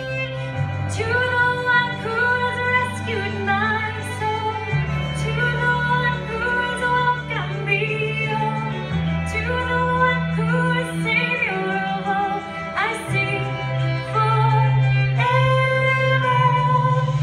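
A woman singing a slow song live into a microphone, with a fiddle playing along and low held chords underneath that change every few seconds.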